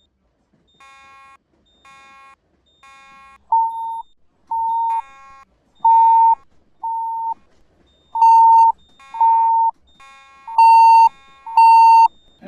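Fire alarm sounders beeping during an alarm test. A softer, buzzy beep repeats about once a second, and about three and a half seconds in a louder, purer beep joins, coming in pairs and getting louder toward the end.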